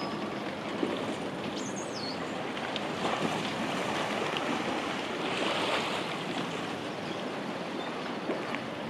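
Steady outdoor wash of wind and harbour water, with a short high chirp about a second and a half in.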